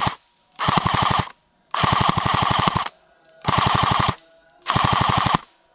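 Airsoft rifle firing on full auto in four short bursts of rapid, evenly spaced shots, each burst about a second long with brief pauses between.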